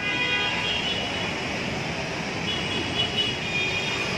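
Steady noise of a strong windstorm with rain just beginning, mixed with city street traffic. A faint high tone sounds at the start and comes back about halfway through.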